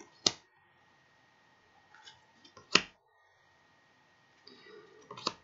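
Tarot cards being flipped through by hand: three sharp card snaps about two and a half seconds apart, each one a card slid off the front of the deck and set against the back, with soft sliding and rustling of card stock just before each snap.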